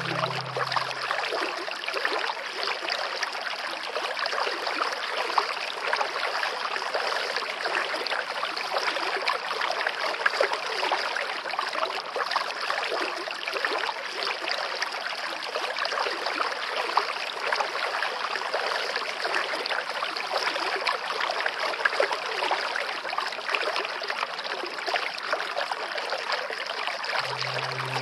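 Steady running water, like a babbling stream. Background music plays under it for about the first second and returns near the end.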